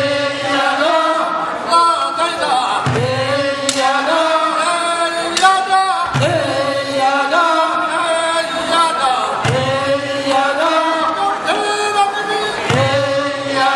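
A group of men singing a traditional Korean fishermen's work song, a chanted phrase sung together and starting again about every three seconds in a steady rhythm.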